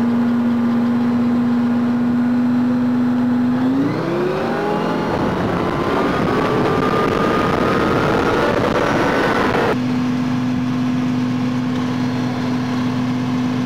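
Armoured personnel carrier's engine running at a steady note, then revving up about four seconds in, its pitch rising for several seconds; near ten seconds the revving sound cuts off abruptly and a steady engine note returns.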